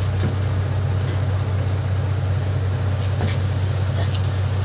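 Steady low drone of a running engine, with a couple of faint light clicks.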